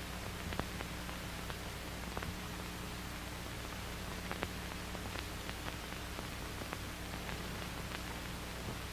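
Steady hiss with a low hum and scattered faint clicks and crackles: surface noise of an old 1940s film soundtrack.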